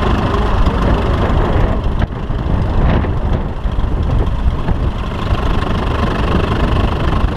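An engine running steadily: a loud, even low rumble.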